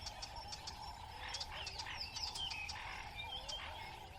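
Faint natural ambience: many small birds chirping and twittering in short calls over a steady faint hum.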